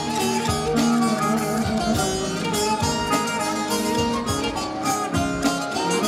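Live band playing an instrumental passage: plucked strings over a steady beat.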